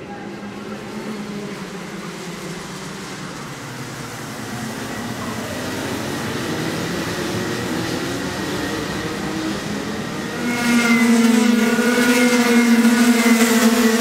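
A pack of 125cc two-stroke Rotax racing kart engines running at high revs, building gradually, then much louder about ten seconds in with a strong, steady, high engine note.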